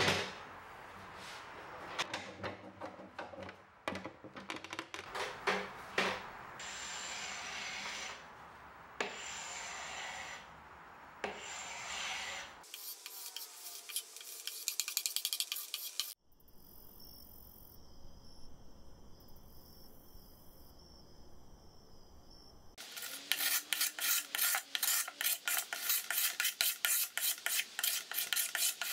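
Carbide scraper drawn in quick repeated strokes over walnut, scraping off the old furniture finish. There is a quieter stretch about halfway through.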